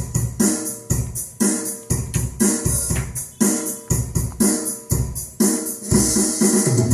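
A song with a steady drum beat, about two beats a second, with keyboard and cymbals, played back through an LM3886 Class AB stereo amplifier into a loudspeaker.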